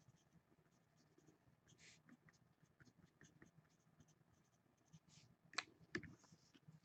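Faint scratching of a pen writing on paper, with two sharp clicks near the end.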